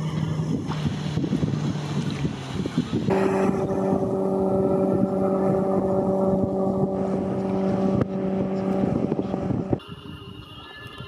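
Motorboat engine running at speed with a steady hum, over rushing noise for the first few seconds. About three seconds in the engine tone becomes louder and clearer, and it cuts off sharply near the end.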